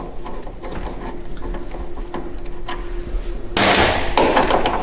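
Scattered light knocks and clicks of workshop parts being handled, over a faint steady hum; about three and a half seconds in, a louder scraping, rattling handling noise lasts about a second.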